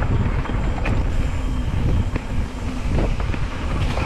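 Wind buffeting the microphone over the low rumble of an e-mountain bike rolling fast on a dirt singletrack, with a few sharp clicks and rattles from the bike going over bumps.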